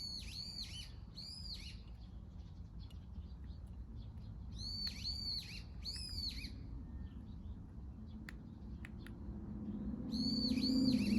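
Wild bird calling: three short runs of three or four high, arched notes, repeated several seconds apart.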